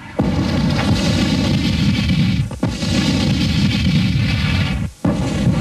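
Artillery guns firing: three heavy blasts about two and a half seconds apart, coming in sharply about a quarter second in, near the middle and near the end. The noise of each carries on loud until the next.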